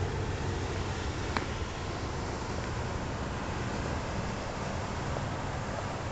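Steady low rumble and hiss of outdoor background noise on a hand-held camera's microphone while walking, with a single sharp click about a second and a half in.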